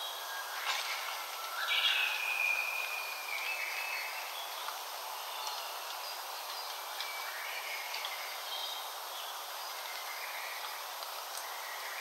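Wild forest songbirds singing and calling over a steady soft hiss. The loudest is a drawn-out whistled phrase about two seconds in, followed by scattered shorter chirps.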